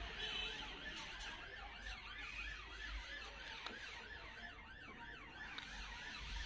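Faint electronic siren warbling, its pitch sliding up and down a few times a second, starting about a second in.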